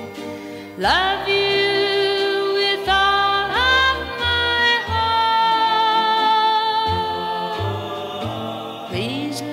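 Background music: a slow sung ballad, with a voice scooping up into long held notes over a steady bass line.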